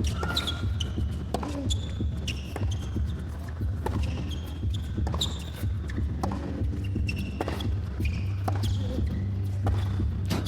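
Tennis play on an indoor hard court: sharp knocks of the ball off rackets and the court at irregular intervals, with short high squeaks of players' shoes, over a steady low hum.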